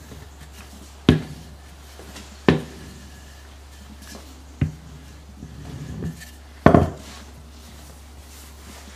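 Four sharp knocks, a second or two apart, of a wooden rolling pin and a metal tart ring against a wooden work board as the excess pastry is cut off around the ring's rim. The last is a doubled knock and the loudest, about two seconds before the end.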